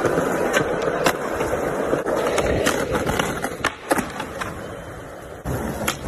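Skateboard wheels rolling over concrete, with several sharp clacks of the board's tail and deck striking the ground during tricks. The rolling sound is strongest in the first few seconds and fades toward the middle.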